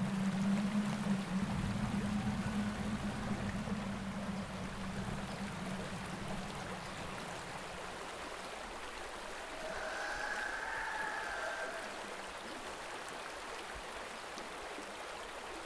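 Ambient soundscape of steadily running water, with a low steady hum underneath that fades away partway through. A faint, wavering higher tone rises out of the water noise briefly about ten seconds in.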